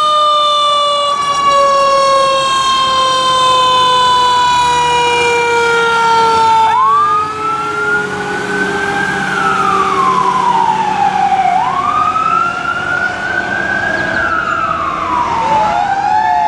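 Fire ladder truck's siren: a long tone sliding slowly down in pitch for about seven seconds, then rising and falling in a slow wail twice. The truck's engine runs steadily underneath.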